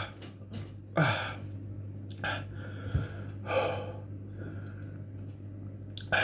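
A man breathing hard through his mouth in sharp gasps, three about a second apart and another near the end, his mouth burning from extremely hot chilli corn chips. A steady low hum sits underneath.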